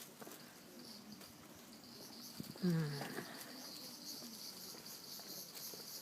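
Cicadas buzzing in a steady high-pitched drone that grows stronger about a second in. About halfway through comes one short, low, falling voice-like call, the loudest sound here.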